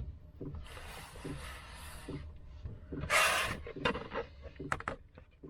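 Bread dough being turned out and handled by hand for kneading: a stretch of rustling or scraping, a louder brief scrape a little after three seconds, then several sharp knocks.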